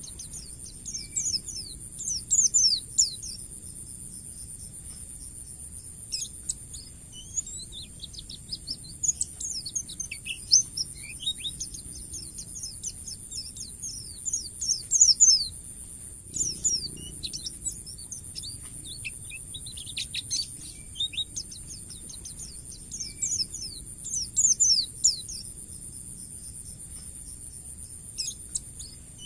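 White-eye (pleci) singing its fast ngalas song: bursts of quick down-slurred chirping notes, a new phrase every second or two, over a steady high-pitched hiss.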